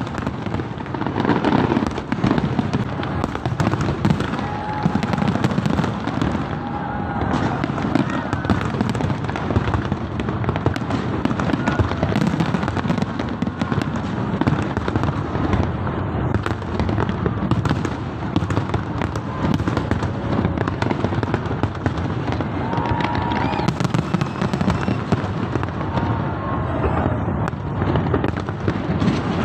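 A large fireworks display bursting continuously: a dense, unbroken stream of bangs and crackling, with crowd voices underneath.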